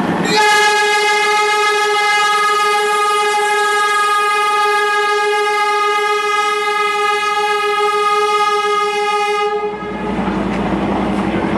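Darjeeling Himalayan Railway diesel locomotive sounding one long, steady horn blast of about nine seconds as the train pulls out, stopping near the end; the rumble of the moving train carries on after it.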